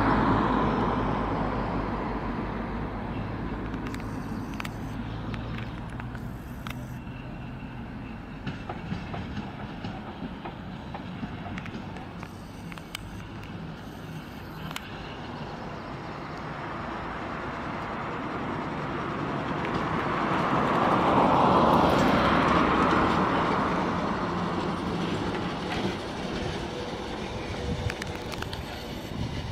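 KTM tramcar running slowly round a terminal turning loop, its wheels rolling on the rails with a few clicks. A louder rumble fades away over the first few seconds. The tram then grows louder as it comes round the curve, loudest about two-thirds of the way through, and fades again.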